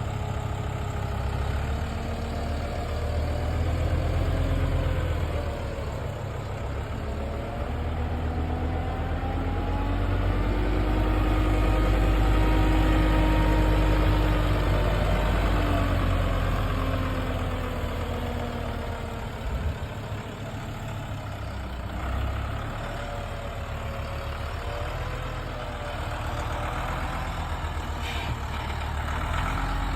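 Heavy forestry machine's engine running continuously, its pitch slowly rising and falling as the revs change, loudest around the middle. A few short knocks near the end.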